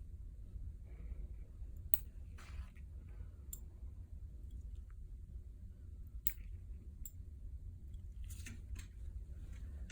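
Metal surgical instruments clicking sharply now and then during earlobe suturing, a needle holder and suture scissors, about six clicks over a steady low hum.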